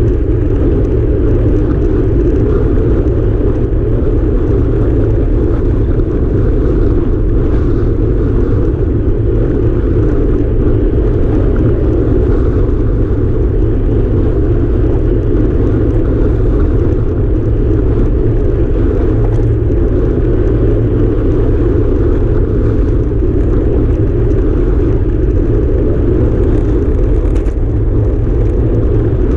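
Steady wind rush and rumble buffeting the microphone of a handlebar-mounted camera on a road bike riding at time-trial speed, with tyre noise from the asphalt mixed in.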